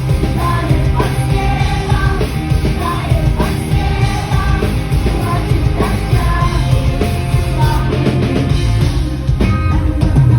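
Rock music with a sung melody over a heavy, steady low end.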